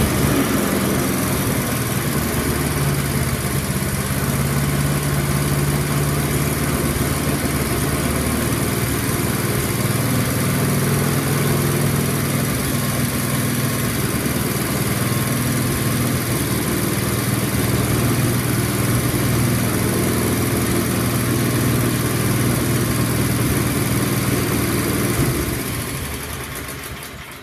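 Bolens 8 HP snowblower's single-cylinder engine running steadily on its newly fitted carburetor, then winding down and stopping near the end.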